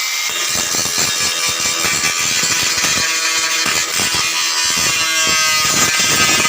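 Izumi 130 gasless flux-core MIG welder running a bead, the arc crackling and sizzling steadily.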